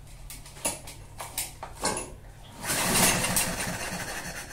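Recoil starter of a cheap 139 cc overhead-valve lawn mower engine being pulled, the engine cranking over without catching. There are a few short clatters at first, then one louder pull about three seconds in. The engine is failing to start.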